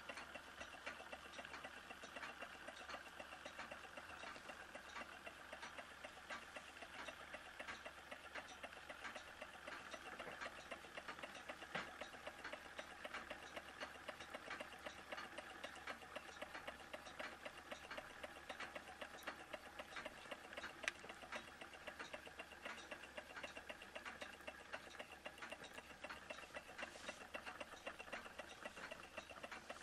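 Faint, rapid, even mechanical ticking of small model Stirling engines running, over a steady hiss, with one sharper click about two-thirds of the way through.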